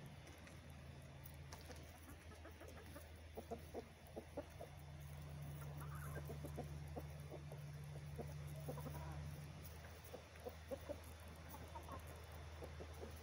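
A small flock of chickens clucking quietly as they forage, with short clucks scattered throughout. A low steady hum runs underneath and grows louder for several seconds in the middle.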